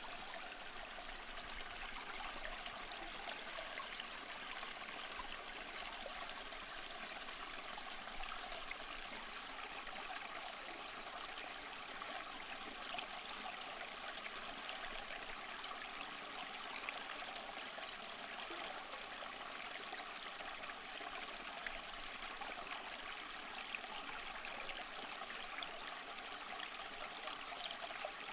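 A small stream running and trickling over stones, a steady even water sound with little low rumble.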